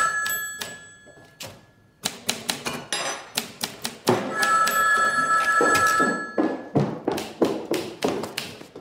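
Telephone ringing, one ring fading just after the start and a second ring from about four seconds in, with typewriter keys clacking in quick runs between and after the rings.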